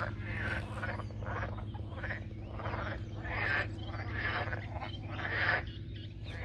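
Chorus of many frogs calling from a flooded marsh, their croaking calls overlapping about two a second.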